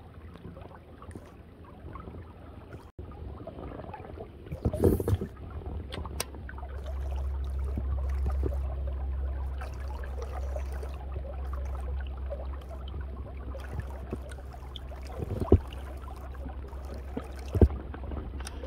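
Streamside ambience: water trickling over a low, steady rumble that swells a few seconds in, with several sharp knocks of gear being handled.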